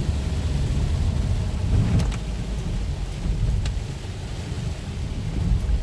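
Heavy rain falling over a steady low rumble, with a few sharp clicks near the middle.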